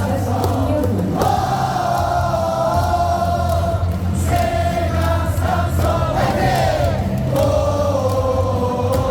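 Baseball stadium crowd singing a cheer song together over amplified music with a steady low beat.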